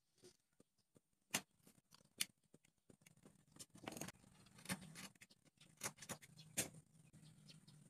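Sharp, scattered clicks and snips of small wooden popsicle-stick pieces being cut and handled on a plywood board, about six of them. A faint low drone joins about three seconds in.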